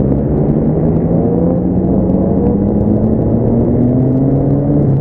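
Motorcycle engine heard from onboard, pulling steadily under way with its pitch rising slowly as it accelerates through a gear, over rumble and wind rush; the rising note breaks off near the end.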